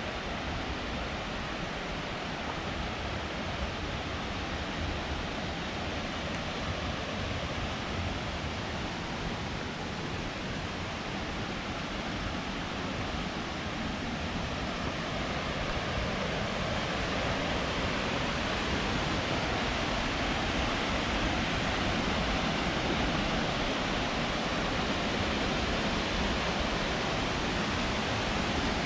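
Waterfall: a steady rush of falling water that gets a little louder about halfway through.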